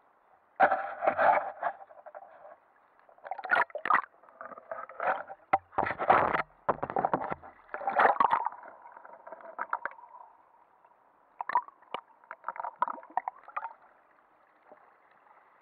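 Water sloshing and gurgling against an action camera's waterproof housing as it is dragged along the sea surface, heard muffled through the case in irregular splashy bursts, with a few sharp knocks near the end.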